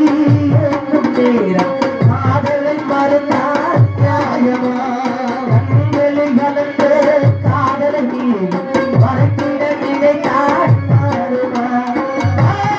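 A male voice singing a slow Tamil folk lament, with live accompaniment from a hand drum striking a heavy beat about every second and three-quarters under a wavering melody.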